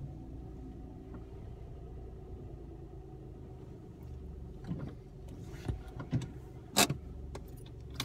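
Steady low hum inside a car. In the second half, a run of small clicks and knocks, one sharp click near the end.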